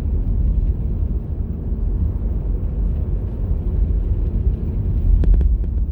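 Steady low rumble of a Toyota Corolla driving, heard from inside the cabin: engine and tyre noise on a snow-covered road.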